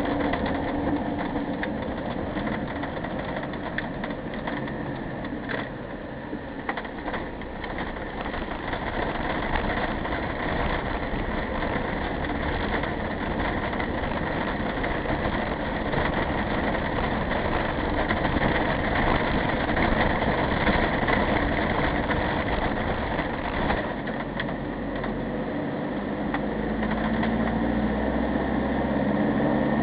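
Vehicle engine and road noise heard from inside the cab while driving, steady throughout with a slight lull several seconds in and a deeper low rumble near the end.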